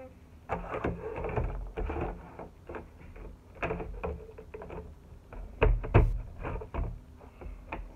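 Clear plastic Bakugan battle arena parts being handled and set down on a desk: irregular plastic clicks, rustling and knocks, with the loudest knock about six seconds in.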